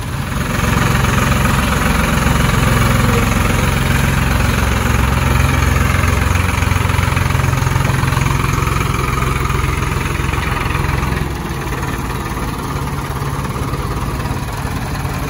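Diesel tractor engines running hard at high throttle during a tochan tug-of-war pull: the rumble rises about half a second in, holds for some ten seconds, then eases back to a lower steady run.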